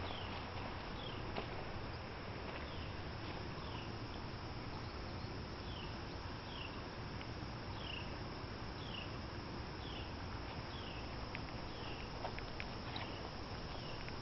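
Steady rush of a muddy creek's flowing water, with a series of short, falling chirps from a small creature repeating every second or so above it.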